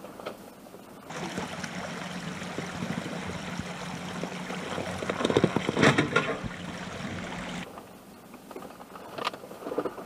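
Toyota Land Cruiser Prado driving slowly through a shallow, rocky river: a steady engine hum with rushing, splashing water, and heavier splashing and knocks about five to six seconds in. It drops back quieter near the end, with a few knocks.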